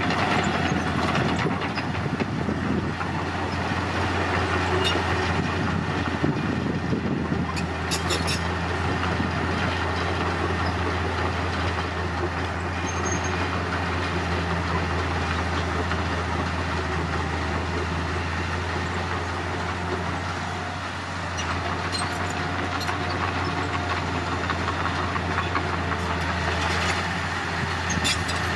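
Heavy diesel engine of earthmoving machinery running steadily with a constant low drone, with a few brief clicks over it.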